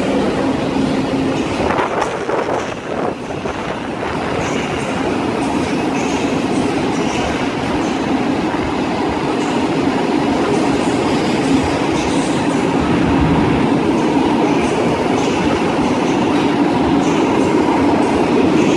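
Intercity passenger coaches rolling past as the train pulls out: a steady rumble of wheels on rail, with short high clicks and squeals coming about once a second.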